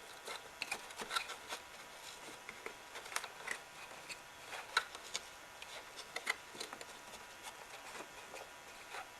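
Faint, scattered clicks, taps and rustles from an upright vacuum cleaner's bag compartment and pre-motor filter being handled.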